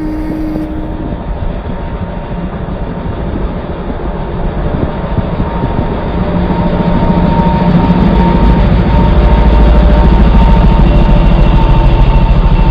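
Heavy vehicle running with a low rumble and a faint steady whine, growing louder through the second half.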